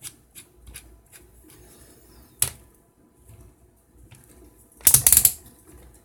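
Keyless chuck of a cordless drill being twisted tight by hand onto bent wire ends, clicking as it ratchets. A few light clicks come first, then one sharp click about two and a half seconds in, and a quick run of loud clicks about five seconds in.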